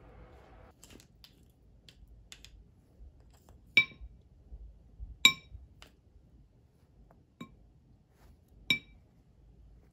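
A spoon clinking against a dish three times, each clink ringing briefly, with a fainter clink and small soft taps between, as blueberries are scooped and spooned out.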